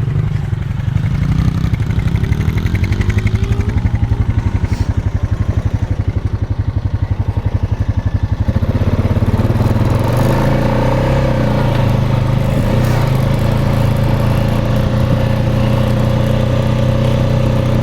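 A four-wheeler (ATV) engine running under way, pulsing unevenly at first. About halfway through it settles into a steadier, higher hum.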